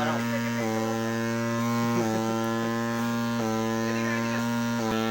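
Electric milking machine's motor running with a steady hum, its pitch shifting slightly in small steps about every one and a half seconds.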